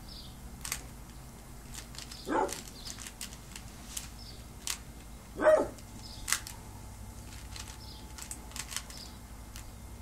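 Plastic Rubik's cube layers clicking as they are twisted, in quick irregular ticks. Two short calls break in, about two and a half and five and a half seconds in; the second is the loudest sound.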